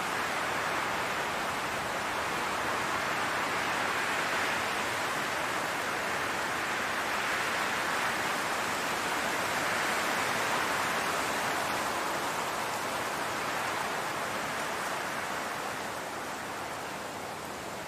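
Wind blowing across a field of tall grass: a steady rushing hiss that swells and eases gently, dropping a little near the end.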